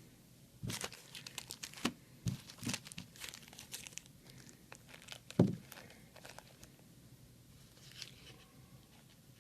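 Packaging from a shipping box being crinkled and torn as it is opened up, in a quick run of crackles, then a single loud thump about five and a half seconds in.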